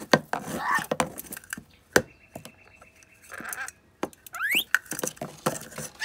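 Rainbow lorikeet playing with a plastic cup on cardboard: sharp knocks and scuffs of the cup against the cardboard, short chattering chirps in the first second, and a quick rising squeak about four and a half seconds in.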